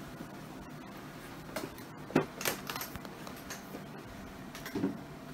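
A few short clicks and knocks from handling, about two seconds in, again half a second later, and once near the end, over a steady low hum.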